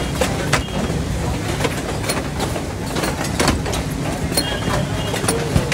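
Factory floor noise: a steady low machinery rumble with scattered sharp clanks and knocks from engines and fixtures being handled at a packing line.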